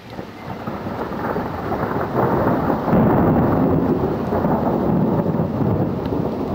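A long peal of thunder that swells over the first three seconds and then rumbles on, low and loud.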